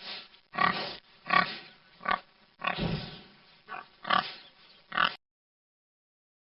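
Wild boar calling: a run of about nine short, rough calls over about five seconds, then a pause.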